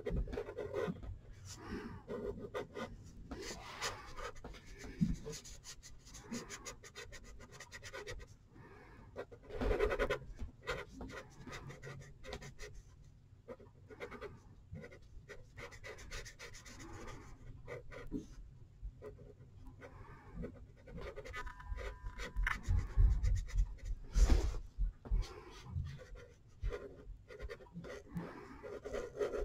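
Marker scribbling on paper in rapid short back-and-forth strokes as an area is coloured in, with a few dull knocks about three quarters of the way through.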